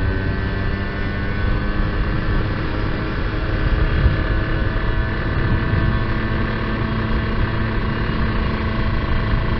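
Kawasaki Ninja R's two-stroke single-cylinder engine running at a steady cruise under the rider, with wind rumble on the microphone. Its carburettor is set rich with a re-drilled pilot jet.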